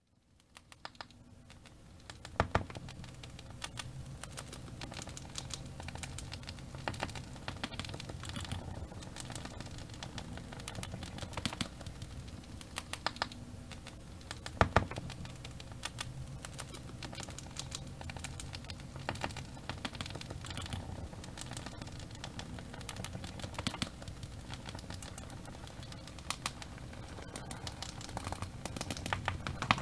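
Wood fire in a fireplace crackling, with frequent irregular pops and snaps and a few louder ones over a low steady rumble of the burning; the sound fades in at the start.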